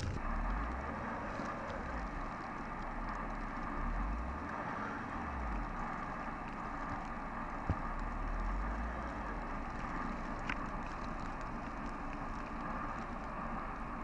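Blizzard wind gusting on the microphone, rumbling unevenly over a steady rush of blowing snow, with the sound of a car stranded in the snow mixed in. A single short knock comes a little past halfway.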